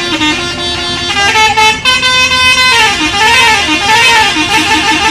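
An Indonesian bus's 'telolet' multi-tone musical air horn playing loudly. It holds chords of several horn notes that step from one pitch to another, then about three seconds in switches to a fast warbling tune that swoops up and down.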